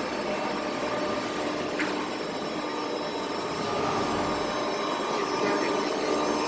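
Durmapress 300-ton CNC hydraulic press brake running, a steady machine hum with a few held tones. There is a short click about two seconds in, and the hum grows slightly louder past the middle.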